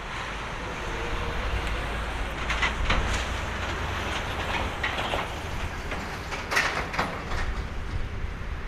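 Airbus A330-300 airliner's Rolls-Royce Trent 700 engines running at low power as it rolls slowly on the runway, a steady low rumble. Several short sharp clicks come through it, loudest about three seconds in and again near six and a half seconds.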